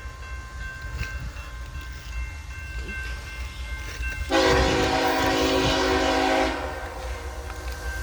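A train's air horn sounds one long blast of about two seconds, starting about four seconds in, over the steady low rumble of the passing train.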